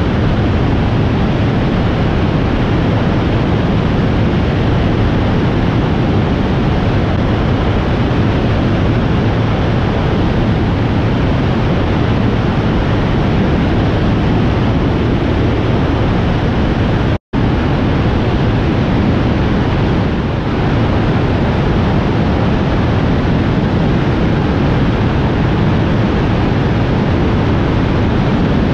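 A Europa light aircraft in level cruise: a steady rush of wind on an externally mounted microphone, with the engine and propeller droning underneath. The sound drops out for an instant about seventeen seconds in.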